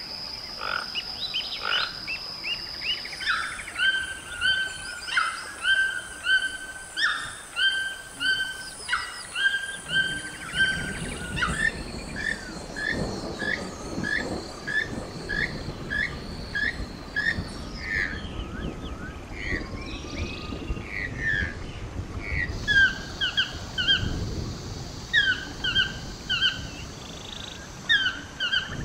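Recorded wild toucan calls played one species after another: repeated croaking calls, about one or two a second, over rainforest background sound. Through the middle they are keel-billed toucan calls, and near the end Swainson's toucan calls.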